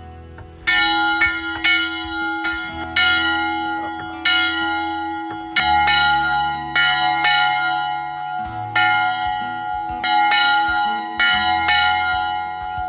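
Church bell rung by hand from its rope, struck about a dozen times at an uneven pace. Each stroke keeps ringing on under the next.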